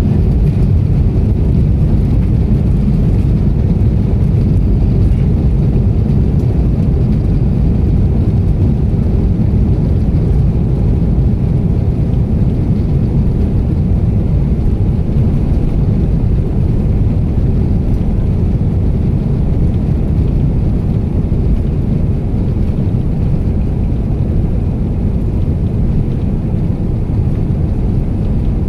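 Airliner taking off, heard from inside the cabin as a loud, steady low rumble of engine and airflow noise.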